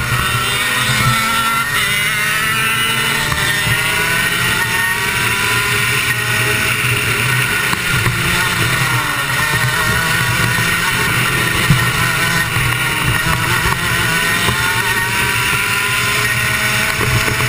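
Rotax two-stroke kart engine running at racing speed, its pitch rising and falling again and again as the throttle opens and closes through the corners.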